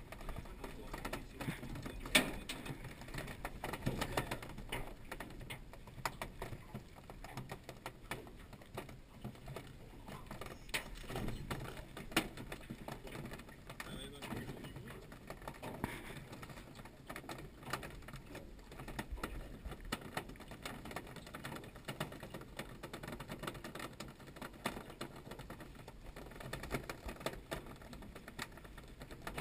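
Irregular light clicks and taps of fishing tackle being handled on an aluminium boat, the rod being jigged over the side, over a low steady background rumble.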